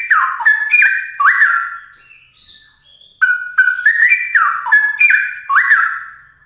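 Straw-headed bulbul (cucak rowo) singing loudly: two phrases of quick whistled notes, each note swooping down and back up, with a short stretch of softer notes between them about two to three seconds in.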